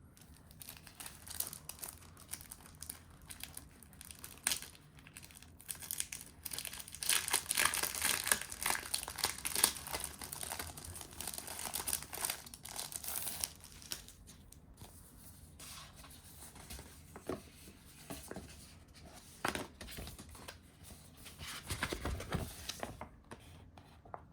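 Paper and packaging being handled, crinkling and rustling with scattered light taps. The crinkling is busiest and loudest in the middle stretch, with shorter rustles later on.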